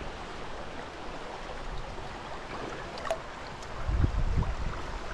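Steady rush of flowing river water, with wind buffeting the microphone in low rumbling gusts from about four seconds in.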